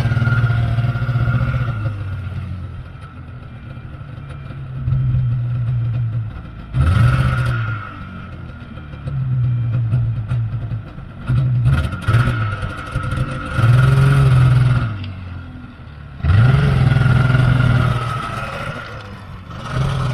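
Two-stroke snowmobile engine revving hard in repeated bursts of throttle and easing back between them, rising in pitch on the loudest pulls, as the machine is ridden.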